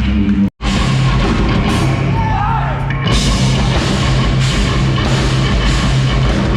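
Live rock band playing loud, heavy rock with drums, cutting out for an instant about half a second in; from about three seconds in the cymbals come in harder.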